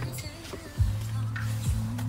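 Music with a thumping kick-drum beat over a steady low bass note. It drops out briefly just after the start and comes back a little before the one-second mark.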